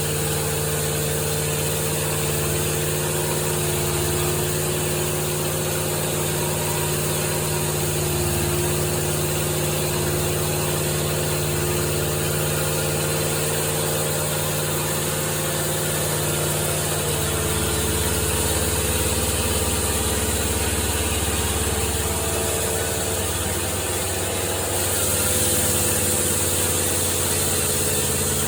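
An engine running steadily, its low note dropping about two-thirds of the way through.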